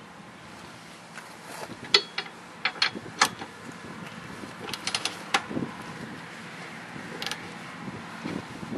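Hand tools working the steel hitch bolts: scattered sharp metallic clicks and clanks, the loudest about two and three seconds in, with a quick run of clicks around five seconds in.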